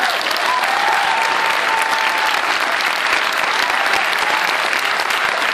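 Audience applauding steadily, with dense clapping, at the end of a school string orchestra's performance.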